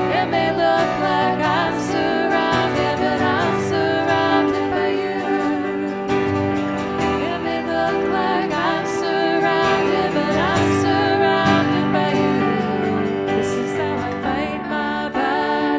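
Worship band music, with guitar under a sung melody that carries no clear words.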